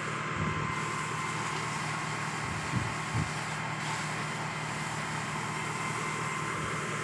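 Engine idling with a steady hum, and a few faint knocks just after the start and about three seconds in.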